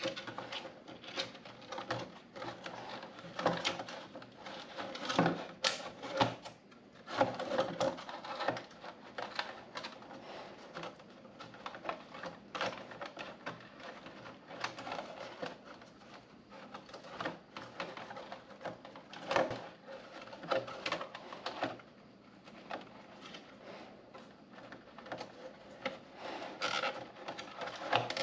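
Irregular small clicks and scrapes of hand work on stiff white pieces, as zip ties are threaded through them and pulled tight to hold them together.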